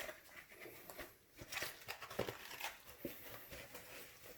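Wiping and handling noise: a plastic vacuum-cleaner part being rubbed dry by hand, with irregular scratchy rustles and small clicks and knocks.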